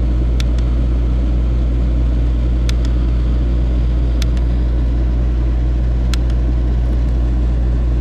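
Dometic Penguin rooftop RV air conditioner running with a steady low hum, compressor and blower both on. Over it, four pairs of small sharp clicks about two seconds apart as the thermostat's temperature button is pressed.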